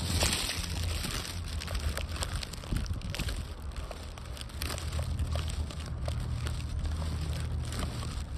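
Outdoor noise on a handheld phone's microphone: a steady low rumble with many scattered light clicks and crackles, typical of wind and handling while walking.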